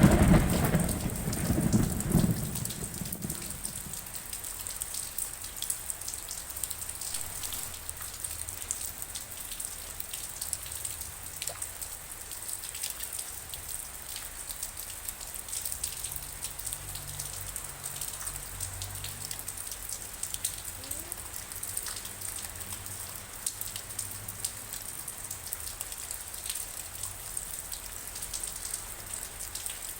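Steady rain, with many individual drops ticking on a hard surface. A low rumble of thunder dies away over the first two or three seconds.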